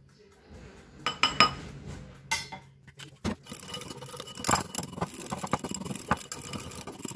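Small wire whisk beating salad dressing in a glass bowl, its wires clinking quickly against the glass. A few separate, louder clinks come first, then a dense run of quick ticks from about four seconds in.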